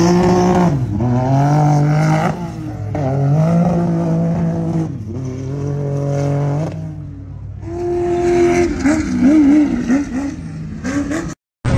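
Off-road race truck engine accelerating hard, its revs climbing and dropping back at each upshift several times. Near the end the revs rise and fall quickly several times.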